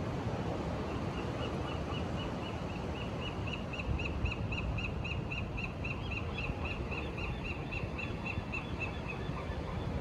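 A bird calling a long run of short, high piping notes, about four a second, that stops about a second before the end. Underneath is a steady wash of wind and surf.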